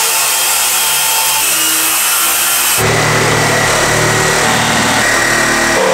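A power tool running steadily as it cuts through a T-shaped support post. Its sound shifts to a lower, denser tone about three seconds in.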